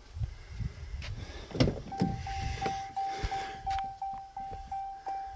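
Footfalls and a sharp thump about a second and a half in, then an electronic chime starts about two seconds in and keeps repeating about three times a second.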